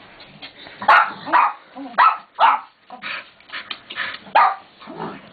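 Dog barking in play while being wrestled: a run of about nine short barks, roughly two a second, starting about a second in.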